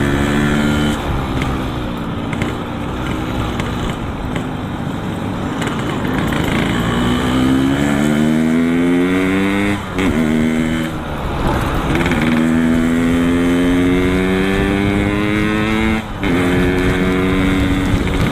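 Yamaha RX-King's two-stroke single-cylinder engine through an aftermarket Boban C33 exhaust, accelerating while riding: the pitch climbs, drops briefly at a gear change about ten seconds in, climbs again, and drops at another shift near sixteen seconds before settling.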